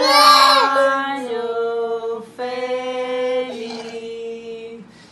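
A toddler's crying wail, loudest in the first second, over voices singing in long held notes.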